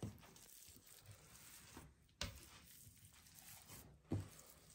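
Dough being kneaded by hand on a tabletop: three soft thumps about two seconds apart, with near silence in between.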